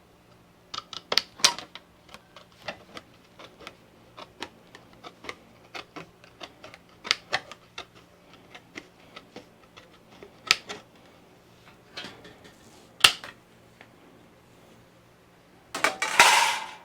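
Small tin snips cutting thin 28-gauge copper sheet: a string of sharp, irregular snips and clicks, with a louder, longer clatter near the end.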